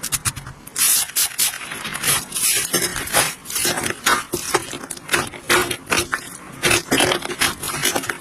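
Slime being played with, making many irregular sharp clicks and crackly pops.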